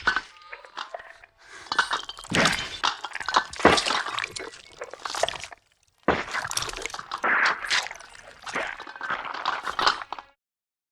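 Film sound effects: a rapid series of crashing, breaking sounds, with a short pause partway through, cutting off abruptly near the end.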